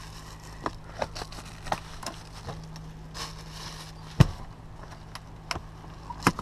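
Plastic bags crinkling and rustling, with scattered sharp clicks and knocks as things are handled around a portable fridge-cooler. The loudest is a single knock about four seconds in. A steady low hum runs underneath.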